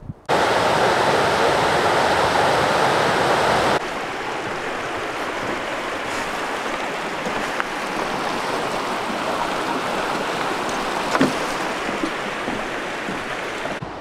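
Rushing water of a mountain stream, a steady rush that drops abruptly in level about four seconds in and carries on more softly.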